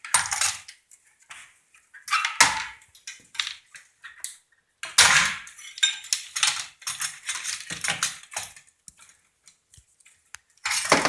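Metal parts of a plasma television clattering and knocking as it is taken apart by hand: a run of irregular clanks and rattles of varying loudness.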